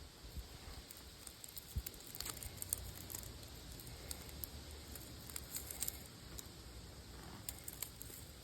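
Faint scattered clicks and crinkling of thin copper wire being pulled and handled.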